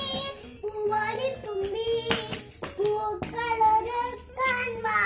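A young boy singing a song solo in a high child's voice, with held notes that slide up and down between short breaths. A few sharp clicks come in between the phrases.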